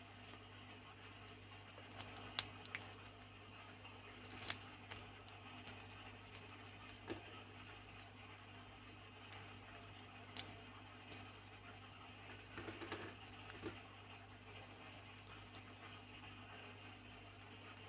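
Light air-dry foam modelling clay being squeezed and handled, giving faint scattered crackles and small clicks with a few sharper ticks, over a steady low hum.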